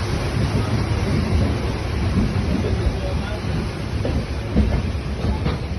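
Steady rushing noise of Dudhsagar waterfall's cascading water, heaviest in the low rumble.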